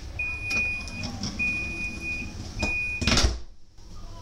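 Door-closing warning on a Class 628 diesel railcar: a high beep sounding three times, then the entrance door shuts with a thud about three seconds in.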